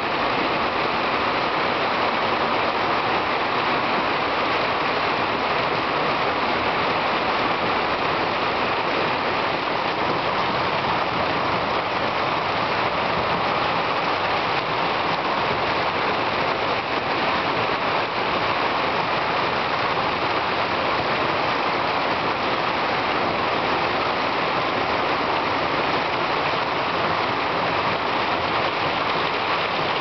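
Heavy rain pouring steadily, falling on a corrugated plastic porch roof overhead and on the garden around it.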